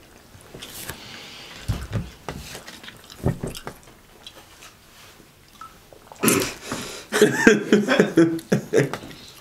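Chewing and crunching on fried chicken, with scattered short clicks and mouth sounds. About six seconds in, two people break into loud bursts of laughter, the loudest sound.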